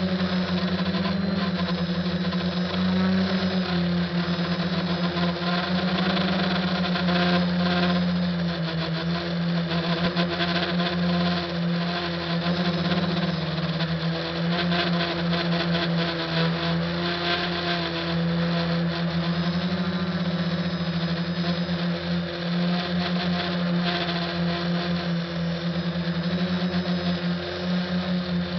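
SK450 quadcopter's four electric motors and propellers running in flight, heard up close from on board: a steady, loud buzzing hum whose pitch steps up and down a little as the throttle changes.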